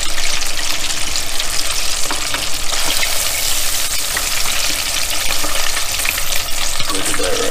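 Beer-battered ocean perch frying in hot oil in a countertop deep fryer: a steady, dense sizzle with fine crackles throughout.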